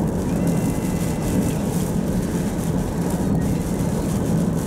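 Car driving on a wet highway in rain, heard from inside the cabin: a steady low drone of tyres on wet road and engine.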